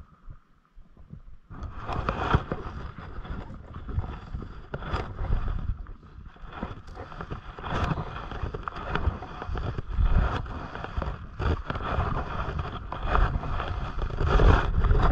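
Wind buffeting the microphone in irregular gusts, starting about a second and a half in, with rustling and handling noise as fly line is stripped by hand.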